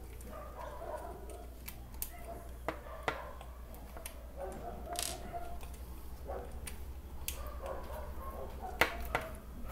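A screwdriver working the small screws of a Bosch GSB 20-2 drill's carbon-brush holder, to take out worn brushes: scattered light clicks and scrapes of metal on metal and plastic, over a steady low hum.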